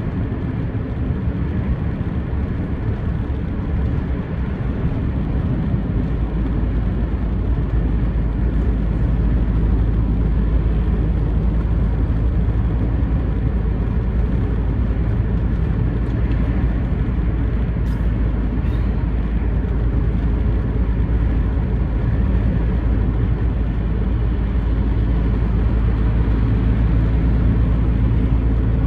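Steady low road noise of a vehicle cruising at speed: tyre roar and engine hum, even throughout.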